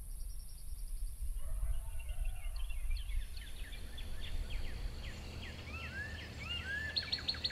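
Songbirds at dawn: many short chirps and rising and falling whistled notes. From near the end a fast run of repeated high notes joins in, all over a low steady rumble.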